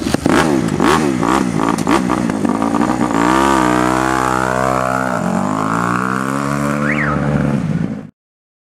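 Small dirt bike engine revving as it pulls away, uneven at first, then climbing and falling in pitch with the throttle. It cuts off suddenly about eight seconds in.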